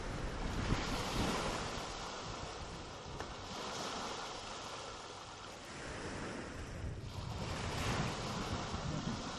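A rushing noise like surf, swelling and easing every few seconds, with no speech.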